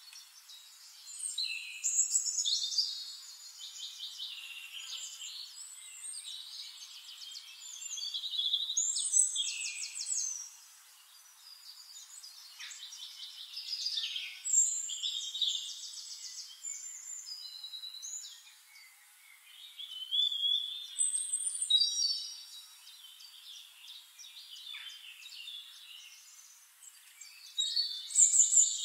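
Songbirds singing: high chirps and rapid trills, several voices overlapping, in louder spells every few seconds with quieter chirping between.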